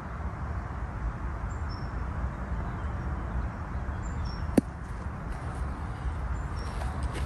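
Steady low outdoor background rumble with a few faint, short, high bird chirps, and a single sharp click about four and a half seconds in.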